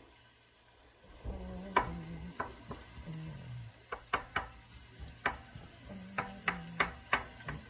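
Wooden spoon stirring onion rings in a stainless steel pot, knocking and scraping against the pot in irregular clicks that begin about a second in, over a faint sizzle of the onions frying in butter and oil.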